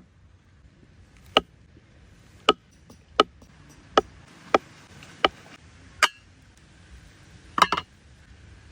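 A series of sharp, short knocks or taps, roughly one a second at uneven intervals, with a quick cluster of two or three near the end.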